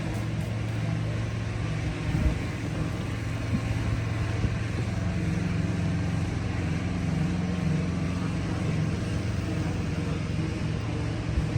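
A motor engine running with a steady low hum over city outdoor noise, with a few faint knocks.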